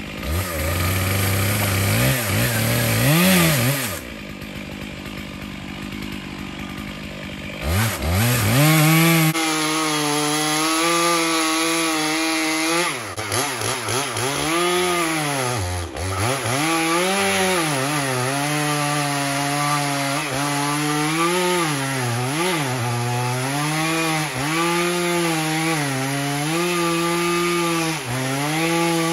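Stihl chainsaw felling a large dead hemlock, making the back cut through the trunk. It revs up and down briefly at first, then runs under load in the cut, its pitch repeatedly dipping as it bogs and recovering.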